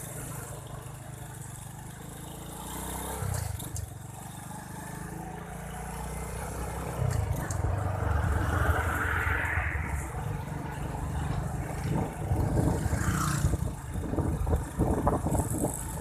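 A motor vehicle's engine running and picking up speed, getting louder about seven seconds in, with wind buffeting the microphone in the last few seconds.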